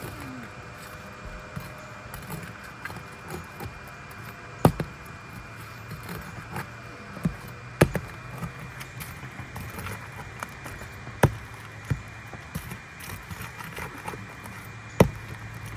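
Sharp metal knocks and clicks from pulling nails out of an asphalt roof shingle: four loud knocks spaced about three to four seconds apart, with lighter clicks and scrapes between, over a steady low hum.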